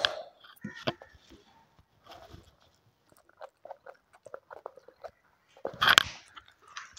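A child eating noodles: small chewing and slurping mouth sounds mixed with light clicks of a metal fork on a ceramic plate, with a louder, sharper scrape or clink about six seconds in.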